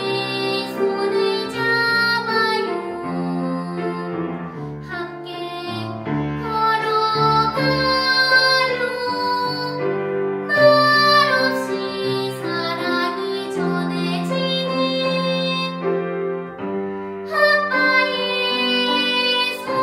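A young girl singing in a trained, classical style with piano accompaniment. Her voice comes in phrases with short breaks between them while the piano carries on underneath.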